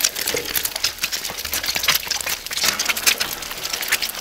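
Eggs frying in a wide pan of hot oil. They sizzle with dense, irregular crackling and spattering pops.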